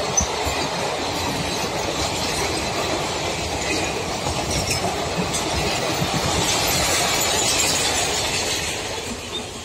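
Passenger coaches of an express train rolling past, wheels running on the rails. The sound fades near the end as the last coach goes by.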